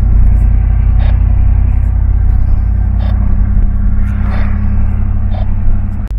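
Ram pickup truck driving on the road, heard from inside the cab: a steady low rumble of engine and road noise. A sharp click comes just before the end, after which the rumble is quieter.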